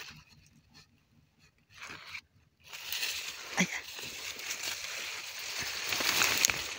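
Leaves and dry grass stalks rustling and crackling as they are pushed aside by hand. The rustling starts about two and a half seconds in and keeps on after that.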